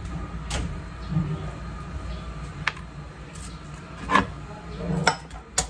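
A few scattered knocks and clicks of kitchen utensils being handled, the loudest near the end as a metal pestle is picked up off a plastic tray, over a low steady hum.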